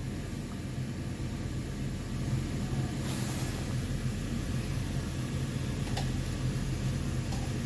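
Steady low hum inside a passenger train carriage, with a short hiss about three seconds in.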